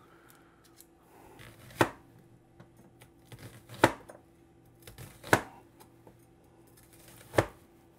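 Chinese chef's knife coarsely chopping an onion on a cutting board: four separate sharp knocks of the blade on the board, spaced roughly one and a half to two seconds apart, with a few light taps between.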